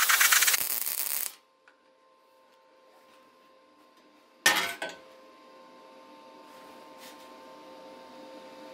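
Stick (arc) welding on a steel shovel blade: the electrode's arc crackles and hisses loudly, then cuts off suddenly about a second in as the arc is broken. A short sharp crackle comes about halfway through, followed by a faint steady hum.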